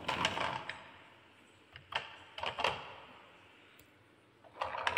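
Hard plastic clattering as a toy dump truck is handled and set down against a wooden course: three short bursts of rattling knocks, about two seconds apart.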